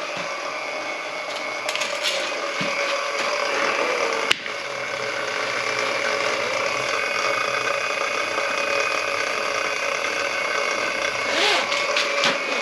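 Motor-driven drain cleaning machine running steadily, its cable turning in the kitchen sink's blocked drain line, with a sharp click about four seconds in and rattling near the end.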